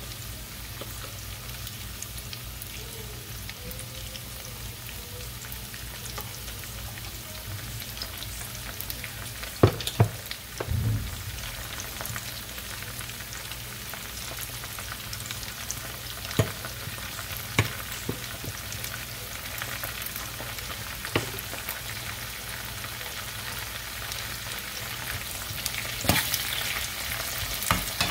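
Onions, garlic and peppers sizzling steadily in oil in a frying pan, stirred with a spoon. The spoon clicks and knocks against the pan now and then, most around the middle and near the end.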